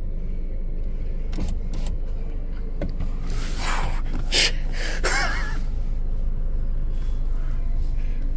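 Car idling with a steady low hum, a few light clicks in the first seconds, and a brief wavering, warbling higher-pitched sound in the middle.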